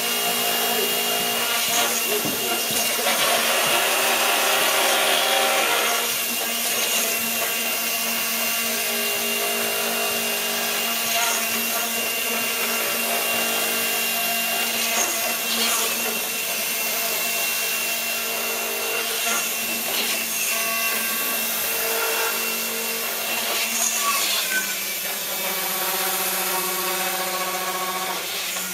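Electric motors of a gyroscopic inertial thruster whirring steadily, several steady pitches shifting a few times.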